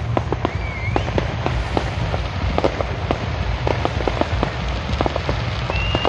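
Fireworks crackling: an irregular string of small sharp pops over a steady low rumble, with a short whistle about a second in and a thin high whistle near the end.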